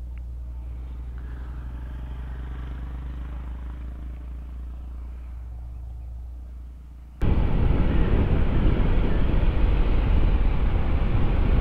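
Honda ADV160 scooter engine running at a steady idle. About seven seconds in, the sound jumps abruptly to the much louder rushing noise of the scooter under way, engine and wind on the microphone together.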